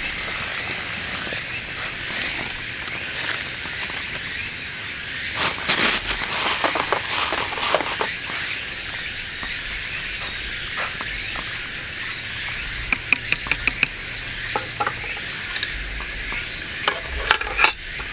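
Water boiling in a metal cup pot over a small wood-gas stove, a steady hissing patter, with chopsticks clicking against the pot as noodles are stirred, in clusters about a third of the way in, a quick run of ticks past the middle and a few sharper clicks near the end.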